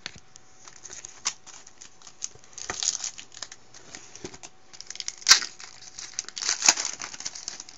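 Foil wrapper of a Bowman Platinum baseball card pack being torn open and crinkled by hand, in irregular crackles with a sharp snap about five seconds in.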